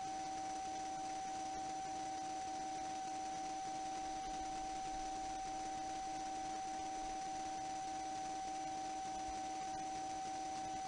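A steady hum of several fixed tones over an even hiss, unchanging throughout.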